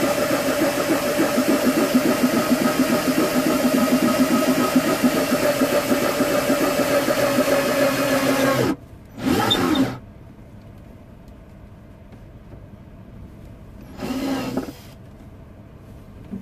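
Cordless drill with a stepped drill bit running steadily as it bores through the wooden rim of an oud, widening the pickup jack hole to the bit's next-to-last step. It stops about nine seconds in, then comes two short bursts a few seconds apart.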